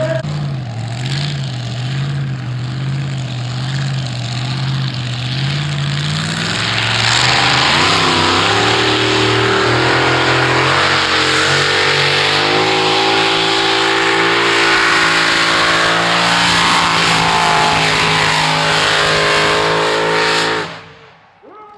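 Modified pulling tractor's engines revving in pulses, then running at full power from about 7 s in, loud and steady with the note shifting in steps, until the sound ends abruptly about 21 s in.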